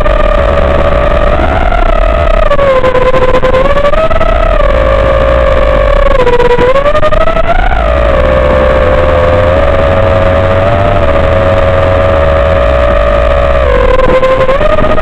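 FPV quadcopter's motors and propellers whining in flight, the pitch rising and falling as the throttle changes.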